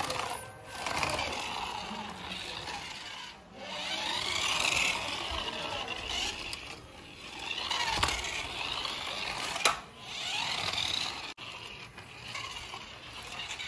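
Remote-control toy car's small electric drive motor and plastic gearbox whirring as it drives on concrete, the whine swelling and fading and rising and falling in pitch every few seconds as it speeds up and slows down.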